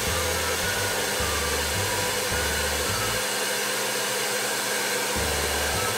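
Handheld electric hair dryer blowing steadily on its low fan setting, drawing under an ampere as a test load on a homemade 220 V inverter.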